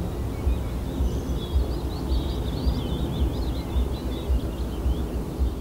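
Gusty wind buffeting the microphone in a low, uneven rumble. A small songbird sings a quick, twittering warble over it, starting about half a second in and fading near the end.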